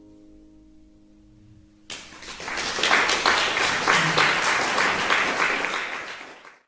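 The last chord of a mandolin and acoustic guitar rings and dies away, then about two seconds in an audience breaks into applause. The clapping fades out quickly near the end.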